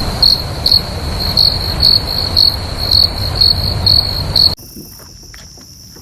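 Crickets trilling steadily at one high pitch, swelling about twice a second, over a low wind-like rumble. About four and a half seconds in the sound cuts abruptly to a quieter, higher steady hum with scattered light clicks.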